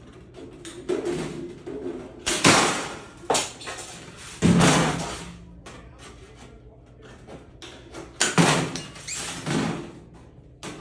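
Tin snips cutting 1-inch corner notches out of a galvanized sheet-metal end cap: a series of short, sharp metallic crunches and clanks in two groups.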